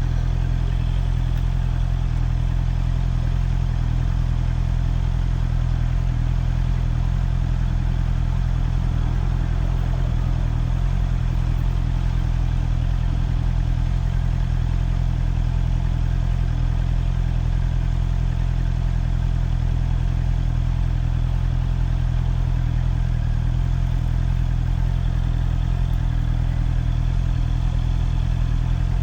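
Motorcycle engine idling at a steady, unchanging low pitch.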